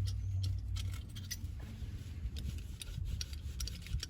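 Handling noise of a metal C-clamp and tools being picked up and moved: scattered light clicks, clinks and rubbing, over a steady low rumble.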